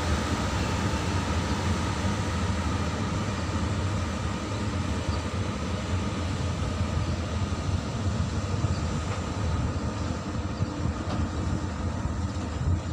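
Freight train departing: a WAG-9 electric locomotive hauling a rake of flat wagons, with a steady rumble of steel wheels on the rails and a faint steady hum.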